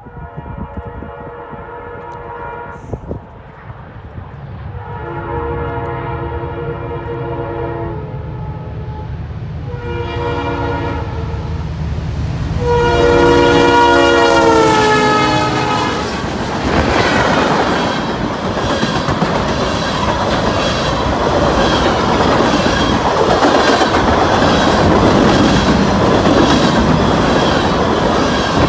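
Freight train diesel locomotive sounding its multi-note air horn in the grade-crossing pattern, long, long, short, long, as it approaches, the last blast dropping in pitch as the locomotive passes; a low engine rumble lies under it. Then the loud rush of freight cars rolling past, with the wheels clacking over the rail joints in a regular rhythm.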